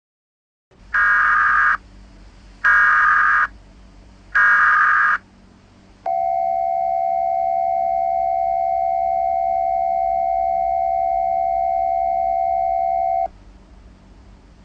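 Emergency Alert System (EAS) SAME header: three short bursts of digital data screech, followed by the EAS attention signal, a steady two-tone alarm held for about seven seconds that cuts off suddenly. Together they mark the start of an emergency alert broadcast.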